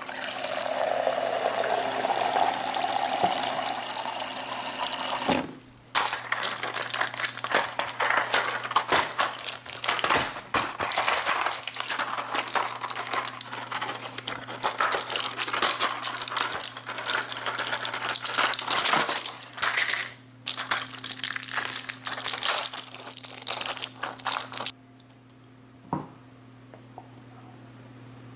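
Water from a refrigerator door dispenser running into a paper cup for about five seconds. Then a long stretch of close crackling and crinkling with short breaks, and near the end it drops to a quiet room with a low steady hum and a single click.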